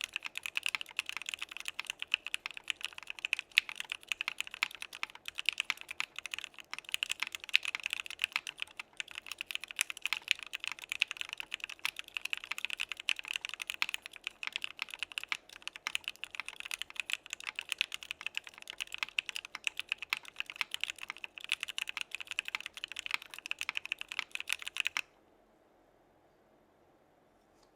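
Fast continuous typing on a mechanical keyboard: Gateron North Pole linear switches with lubed stems and springs on an aluminum plate, in a Frog by Geonworks case with no foam, with CRP Desko keycaps. The clacks are dense and strongest in a high, bright band, and the typing stops abruptly about 25 seconds in.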